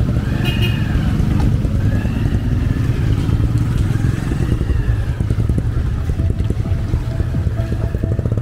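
Motorcycle engine of a motorela passenger cab running close by, a steady low drone in street traffic, with a short high beep about half a second in.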